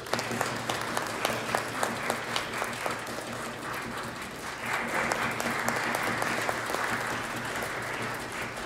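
Audience applause: many hands clapping, starting abruptly and growing fuller about halfway through.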